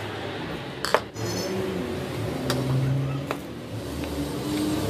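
Flat-blade screwdriver prying at the plastic casing of an 18 V lithium-ion cordless-drill battery pack: a sharp snap about a second in, then two lighter clicks, over a low steady hum.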